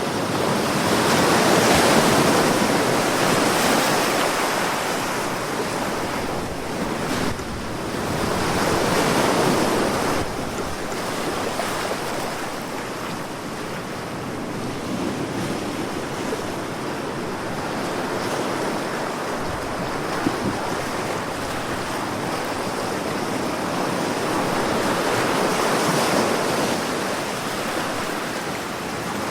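Sea waves breaking and washing in a continuous surf, swelling louder in slow surges about two seconds in, around nine seconds, and again near the end.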